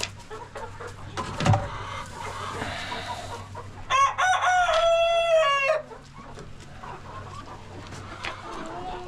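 A rooster crows once, about four seconds in: a long call of nearly two seconds, the loudest sound here. Hens cluck around it, and there is a short knock early on.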